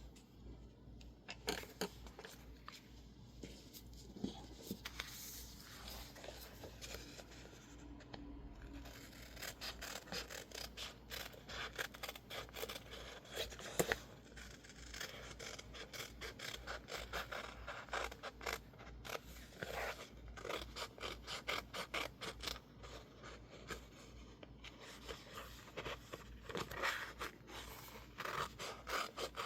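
Scissors cutting through sticker label paper in many short snips, with some scraping of the paper. The snips are sparse at first and come in quick runs from about a third of the way in.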